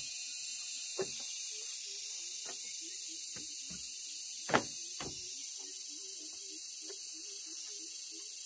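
Hollow knocks of bamboo poles being handled and fitted into a bamboo frame, a few scattered strikes with the loudest about halfway through, over a steady high hiss.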